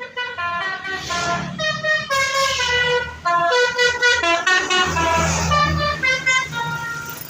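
Indonesian bus 'basuri' telolet horn playing a quick tune of short notes that jump between pitches, with the bus engine running underneath.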